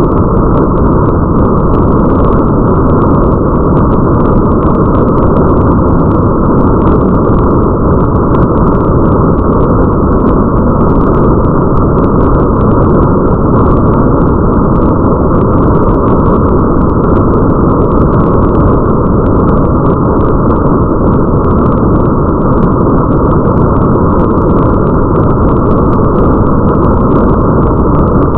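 Steady, muffled rain ambience: an even, deep wash of rain noise with the high hiss cut away, and faint scattered drop ticks above it.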